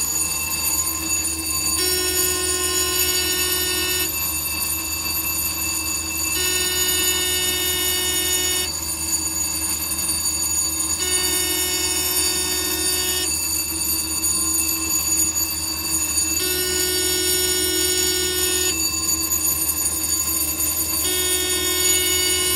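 Cab alarm on a remanufactured AEM-7 electric locomotive sounding a steady multi-pitched tone in about two-second blasts with about two-second gaps, five times, over the locomotive's steady electrical hum. Sounds like these signal serious faults that usually shut the locomotive down.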